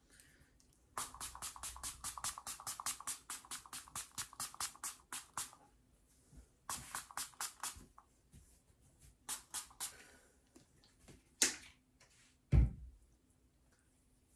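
Fine-mist pump spray bottle of facial water being spritzed in quick runs, about five sprays a second, with a few pauses between runs. A single low thud comes near the end.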